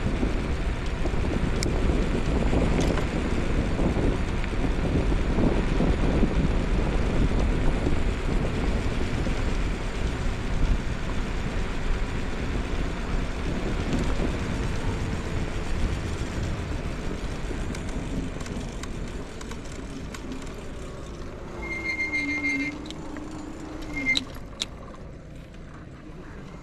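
Electric scooter ride: a steady rumble of wheels on pavement and wind that fades gradually as the scooter slows down. Near the end there are a few short, high beeps.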